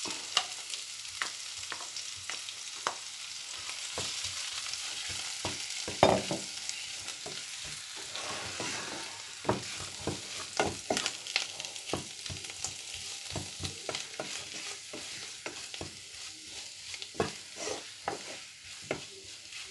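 Boiled potatoes and onion masala frying in a granite-coated pot with a steady sizzle while a wooden spatula stirs and breaks them up, knocking irregularly against the pot. The loudest knock comes about six seconds in, and the sizzle grows fainter in the second half.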